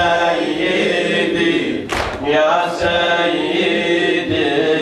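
A group of men chanting a latmiya mourning refrain in unison without instruments. A few sharp unison slaps of hands on chests cut through, the loudest about two seconds in.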